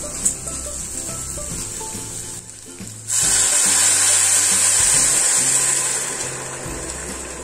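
Rice sizzling as it fries in lard in a saucepan. About three seconds in, boiling water from an electric kettle is poured onto it and the pot bursts into a loud, sudden sizzle and hiss that slowly dies down over the next few seconds.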